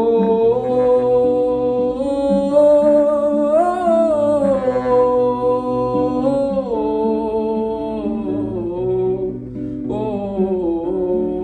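Acoustic guitar playing chords under a voice singing long held notes that glide slowly up and down.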